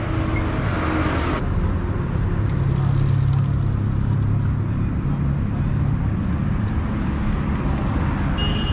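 A motor vehicle's engine runs steadily with road and traffic noise, opening with a hiss in the first second or so.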